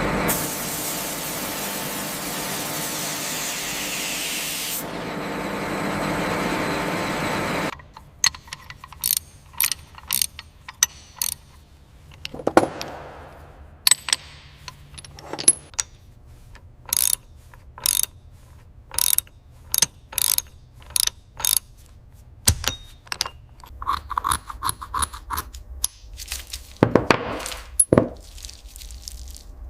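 A steady hiss that cuts off suddenly about eight seconds in, then a long irregular run of sharp metallic clicks and clanks, like hand tools and ratchets working on metal parts in a workshop.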